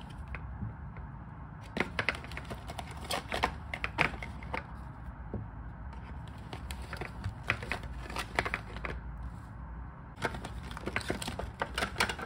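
Light clicks, snaps and cardboard rustling as small flocked toy rabbit figures are worked free of a cardboard display box insert. The sounds come in scattered clusters with short pauses between.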